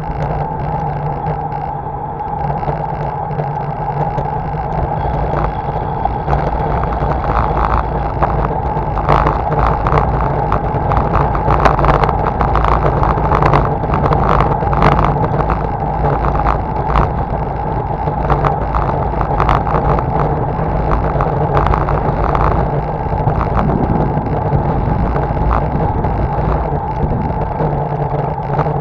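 Steady rumble and hum of a bicycle ride on an asphalt road, picked up by a bike-mounted camera, with frequent rattling knocks that are thickest through the middle.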